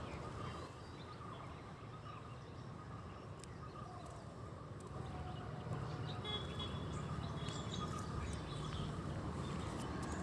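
Rural outdoor ambience: a steady low rumble under scattered faint bird chirps and calls, with one thin high note held for about a second past the middle.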